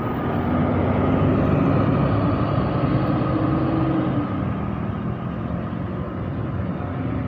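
Bus engine running as it drives past close by, its note rising slightly about three seconds in, over road noise.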